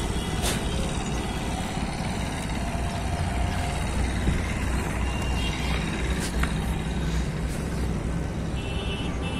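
Steady low rumble of distant road traffic, engines and tyres blending into one drone, with a faint vehicle horn near the end.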